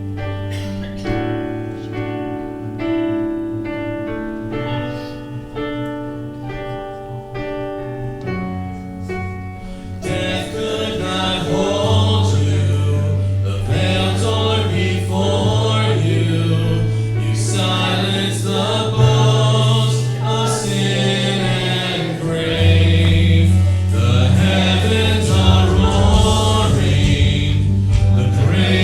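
Worship band music: sustained keyboard notes alone at first, then about ten seconds in a fuller band with bass and group singing comes in, growing louder.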